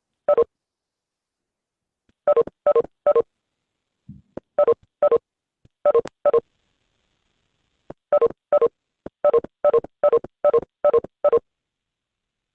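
A run of short electronic beeps, all of the same pitch, in the manner of telephone keypad tones. They come in groups: one, then three, two, two, then a quick run of about nine near the end, roughly two or three a second.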